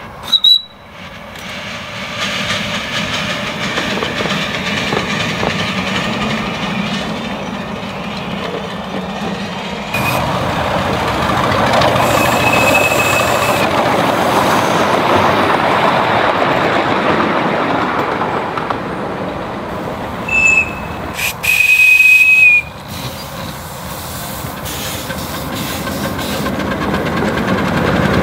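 Miniature 7¼-inch gauge steam locomotives running with riders: the steady noise of the engines and cars on the track, with several steady high whistle blasts, a short toot right at the start, brief ones near the middle, and the longest and loudest about twenty-two seconds in.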